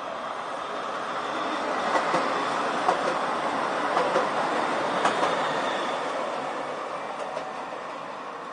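Caen's TVR guided tram, a rubber-tyred vehicle on a central guide rail, passing close by: its rolling noise builds, peaks with a few sharp clacks, then fades as it moves away.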